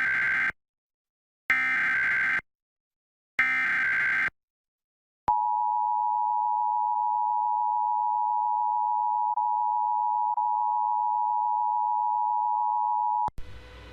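Emergency Alert System activation: three bursts of the SAME digital header, a buzzy data warble about a second long each with about a second between them, the first already under way. Then the EAS two-tone attention signal, a steady dissonant pair of tones held for about eight seconds before it cuts off.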